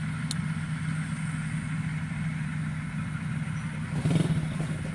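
WD102 Pro rice combine harvester running steadily as it cuts rice: a continuous low engine drone, briefly louder about four seconds in.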